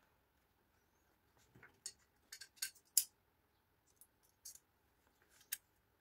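Light metallic clicks and clinks of perforated steel plates and their bolts being handled, a scattered run of short ticks, the sharpest about three seconds in.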